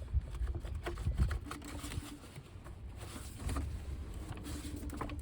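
Scattered light clicks and knocks of hands and tools fitting a serpentine belt and its tensioner in an engine bay.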